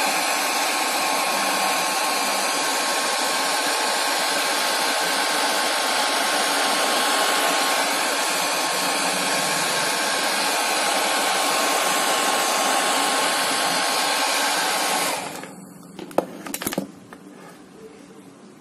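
Small hair dryer with a metal nozzle blowing steadily onto a phone screen to soften the display adhesive, with a faint steady whine. It switches off and winds down about 15 seconds in, followed by a few light knocks as it is put down.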